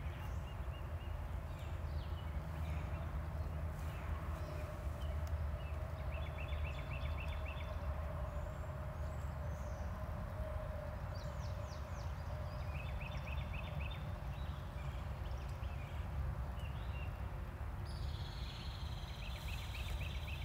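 Birds calling: a short trill of quick repeated notes, heard three times, and a few brief higher chirps, over a steady low rumble.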